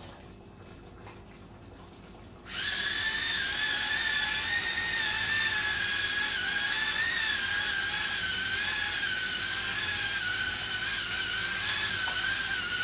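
Small motor of a battery-powered electric spice grinder whining steadily for about ten seconds, starting about two and a half seconds in, its pitch wavering slightly. It hums weakly and runs poorly because its batteries are running down.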